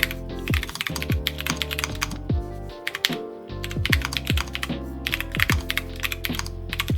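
Fast typing on a mechanical keyboard with Cherry MX Purple tactile switches in an Alice-layout gasket-mount board: a quick run of key clacks, pausing briefly about three seconds in.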